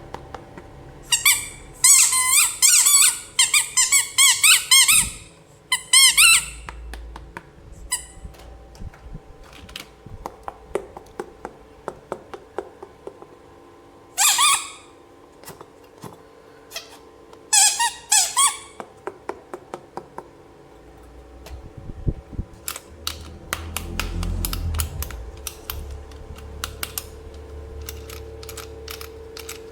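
High-pitched squeaking in several bursts, the longest about four seconds, as toy packaging and plastic toy parts are handled. It is followed by a run of light clicks and taps.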